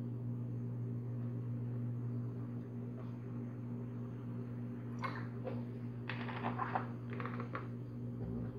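Cooking oil poured into a hot nonstick frying pan gives a few short spells of faint crackle, a little past halfway through, over a steady low hum.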